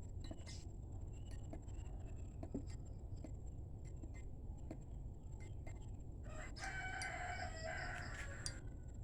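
A rooster crowing once, one drawn-out call of about two seconds starting about six seconds in, over faint scattered clicks.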